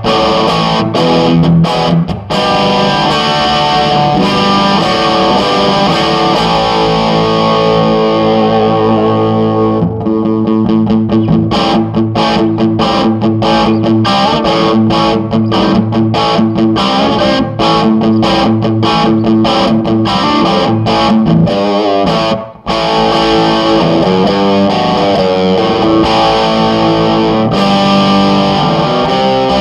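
Electric guitar played through a Marshall Lead 12 solid-state 12-watt head and its two 1x10 cabinets, with the gain just below 8 for an overdriven crunch. Held chords and riffs, then quick choppy strumming in the middle, with a brief gap about 22 seconds in.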